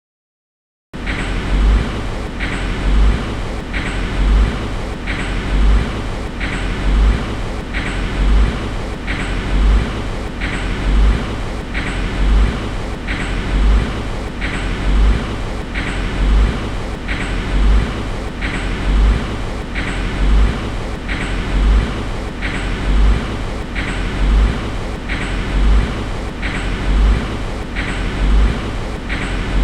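Car being driven, heard from inside the cabin: a steady running and road noise, with a low thump and a click repeating about once a second.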